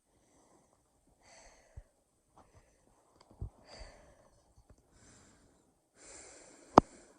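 Close-miked human breathing, made on purpose as awful breathing sounds: several short noisy breaths with pauses between them and small soft knocks. A sharp loud knock comes near the end and is the loudest sound.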